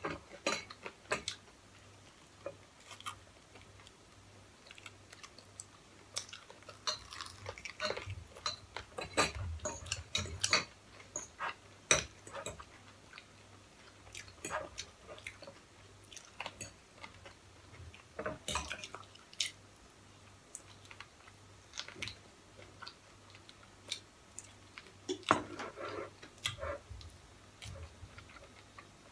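Chewing and eating sounds from two people eating chicken and pancit canton noodles, with forks and spoons clicking and scraping on plates now and then.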